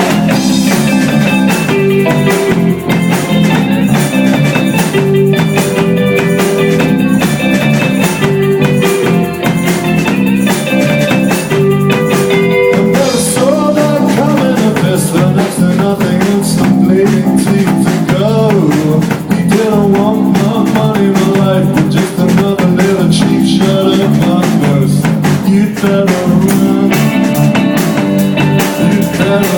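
Live indie band playing a song, guitars over a drum kit with a steady beat.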